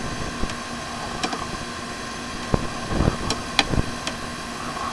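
Steady electrical hum from a sewer inspection camera rig, with scattered clicks and knocks as the push cable is fed into the drain line.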